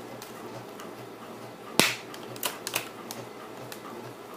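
Plastic laptop screen bezel clips snapping as the bezel is pried off by hand: one sharp loud snap a little under two seconds in, then a few quicker, smaller clicks, with faint creaking ticks of the plastic between.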